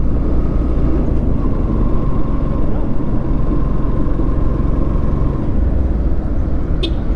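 Motorcycle riding steadily in town traffic, heard from the rider's own bike: its engine running under a constant rumble of road and wind noise.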